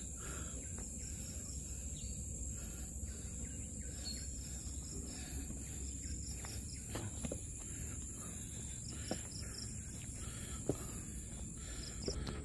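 A steady high-pitched chorus of insects over a low rumble, with a few soft taps of footsteps on a concrete path.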